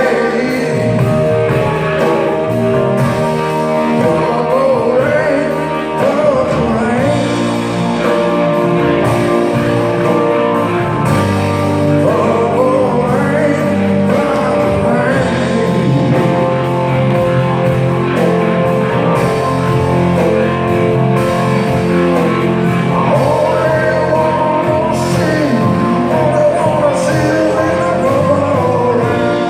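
Live rock band playing, amplified through a hall PA: electric guitar, electric bass, drum kit and keyboard, with a lead voice over the band.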